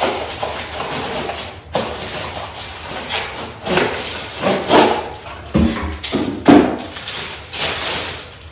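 Cardboard shipping box being opened and handled: flaps pulled open and the box knocked about, giving a run of irregular thumps and scrapes, the loudest a little past the middle. Plastic wrapping crinkles near the end as the item comes out.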